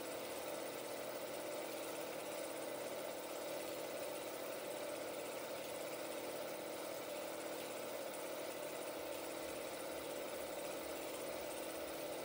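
16mm film projector running steadily, its mechanism whirring without change.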